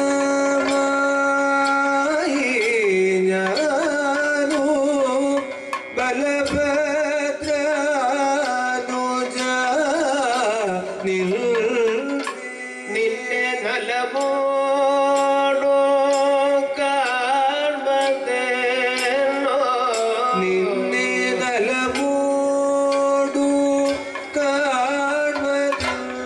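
Kathakali vocal music: a male singer's melody with long, ornamented, wavering held notes, kept in time by regular sharp strikes and a drum.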